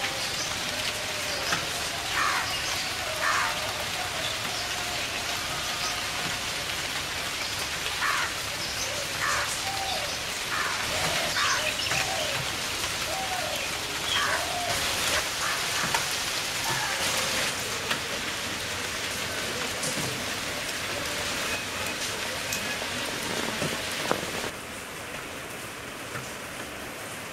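Steady rain falling on leaves and surfaces, with birds chirping again and again through the rain. Near the end the rain becomes quieter.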